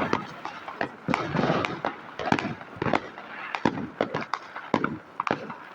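Fireworks and firecrackers going off: many sharp bangs and cracks at irregular intervals, some louder and nearer than others.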